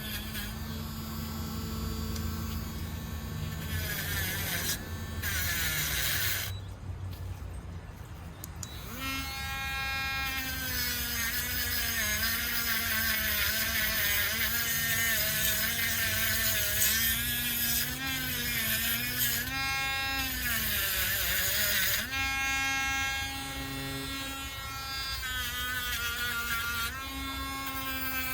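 Dremel rotary tool running a wire brush wheel against a pocketknife, its high motor whine wavering in pitch as the brush is pressed on and eased off. The whine falls away for a moment about seven seconds in, then picks back up.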